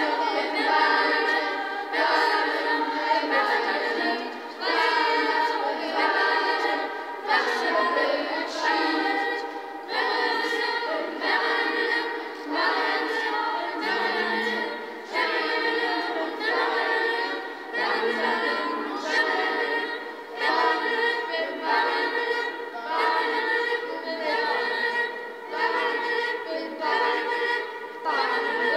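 Children's choir, a school class, singing a cappella in high voices, in phrases with short breaks every second or two.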